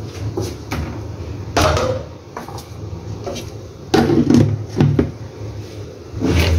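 Dishes and kitchen containers being picked up and set down on a counter: a handful of knocks and clatters, the loudest about a second and a half in and again around four seconds in, over a low steady hum.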